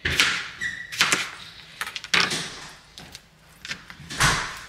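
Chef's knife chopping through a cucumber onto a plastic cutting board: several sharp chops about a second apart, with a heavier knock near the end.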